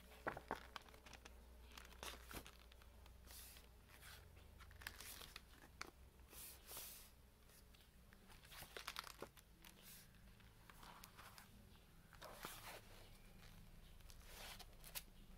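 Quiet rustling of paper sketchbook pages being turned over a spiral wire binding, with scattered small clicks and crinkles as the sheets move around the metal coil.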